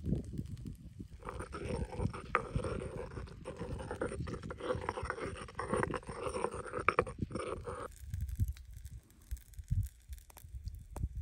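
Stone pestle grinding and stirring herbs and olive oil in a stone mortar: a continuous wet scraping with small clicks that stops about eight seconds in, leaving a few quieter low thumps.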